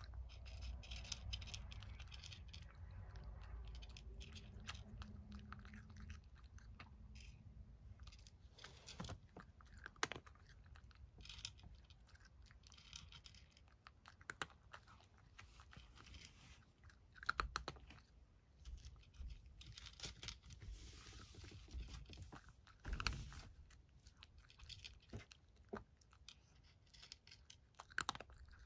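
Domestic cat chewing dry kibble, with faint, irregular crunches and clicks.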